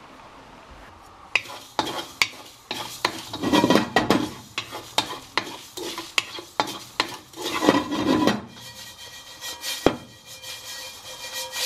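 Food being stirred in a pan: a utensil clicks and scrapes against the pan again and again, starting about a second and a half in, over the sizzle of frying.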